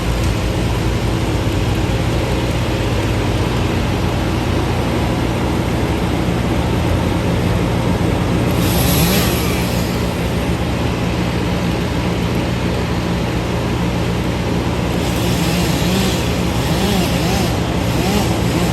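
Heavy diesel engine running steadily at a constant speed, with a brief hiss about nine seconds in.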